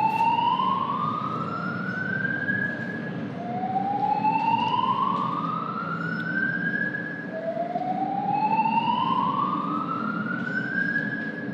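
Building voice-evacuation fire alarm sounding its slow-whoop evacuation tone: three long rising sweeps, each climbing in pitch over about three seconds and starting again after a short gap, the signal to leave the building. A steady low rumble runs underneath.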